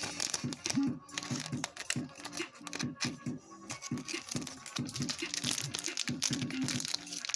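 Trading-card packs and cards being handled: foil pack wrappers crinkling and tearing, with quick irregular rustles and flicks of cards, over background music.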